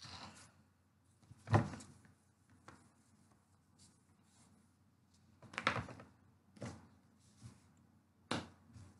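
A handful of separate sharp knocks and thumps in a quiet room, the loudest about one and a half seconds in and three or four more in the second half.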